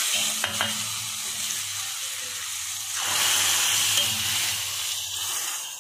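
Hot ghee tadka of cumin, mustard seeds and curry leaves sizzling on freshly poured cooked moong dal in a steel bowl. The steady hiss swells about three seconds in as a ladle stirs the tempering in.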